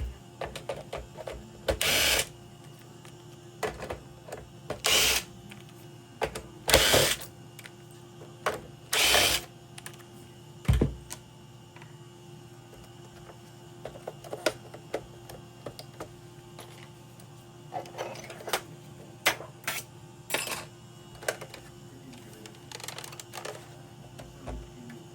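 Clicks, clatter and several short scraping bursts of hands and tools working on a PlayStation 4 Pro console, over a steady low hum.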